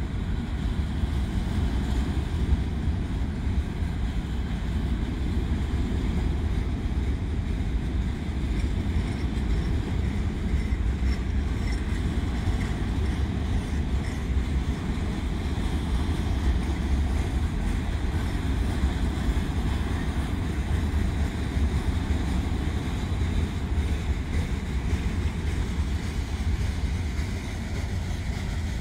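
Freight cars of a Union Pacific manifest train rolling past: a steady rumble of wheels on rail, with wind noise on the microphone.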